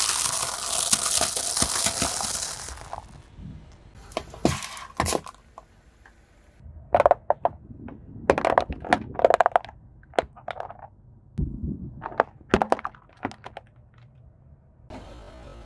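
Dry instant-noodle blocks crunching under a car tyre for about three seconds, followed by scattered sharp cracks and snaps as the tyre presses on hard plastic toy containers, with a dull thud partway through.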